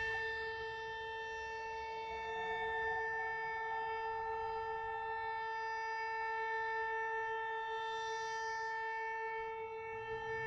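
Civil defense air-raid siren sounding at a steady pitch, with a second, fainter tone rising in pitch during the first few seconds.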